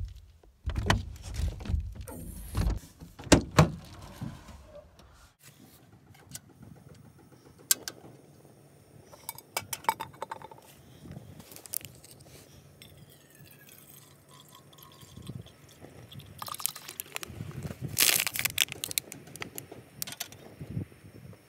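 Handling sounds of camp gear: scattered metal clinks, knocks and rustles, ending with a stainless steel cup being set onto a portable butane camp stove.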